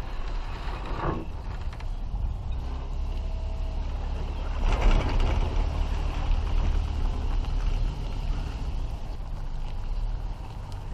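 A vehicle drives slowly, pulling an empty boat trailer up a launch ramp, with a steady low rumble and the trailer's frame creaking and rattling. There is a louder clatter about five seconds in.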